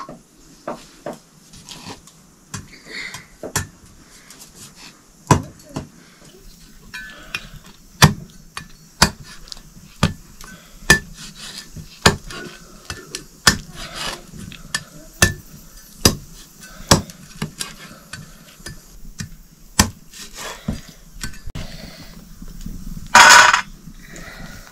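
Metal pots and kitchen utensils clinking and knocking in sharp, irregular strikes, often about a second apart, with one brief louder clatter near the end.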